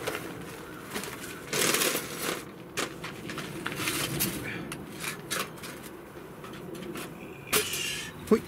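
Fabric rustling as a cloth item is handled and folded, in irregular bursts, the loudest about two seconds in and another near the end, with a few light clicks and knocks.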